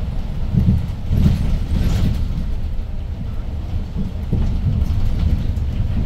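Interior noise of a 2012 Hyundai New Super Aerocity city bus under way: the low rumble of its CNG engine and the road. A few knocks and rattles from the body and fittings come in the first two seconds.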